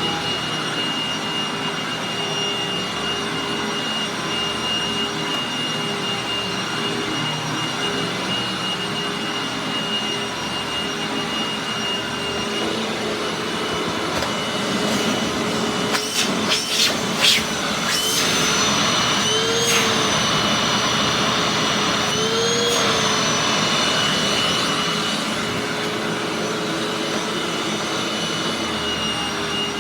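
Hoover WindTunnel Anniversary Edition bagged upright vacuum with a 12-amp motor running steadily with a high whine. About sixteen seconds in come a few sharp clicks, after which it runs louder for several seconds, its pitch briefly rising twice, before settling back to its steady running.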